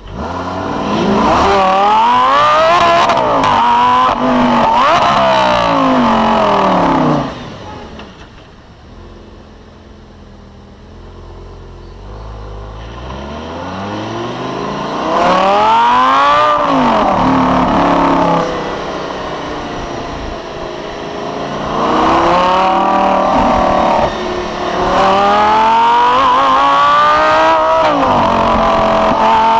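Lamborghini Gallardo LP560-4's V10 engine accelerating hard, the revs climbing and dropping back several times as it shifts up through the gears. About seven seconds in it eases off to a quieter run, then builds again into more full-throttle pulls with the revs rising and falling.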